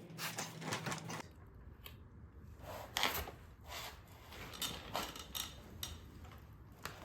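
Scattered light metallic clicks and clinks, about eight of them spread unevenly, from hands working with tools and a motorcycle chain.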